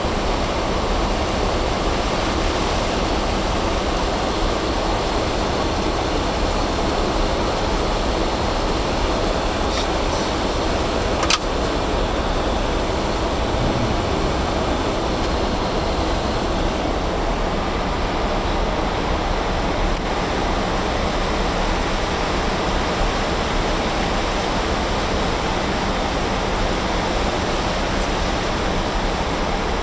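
Steady rushing noise of airflow and engines inside an Airbus A300-600 airliner's cockpit in flight, with a single sharp click about 11 seconds in.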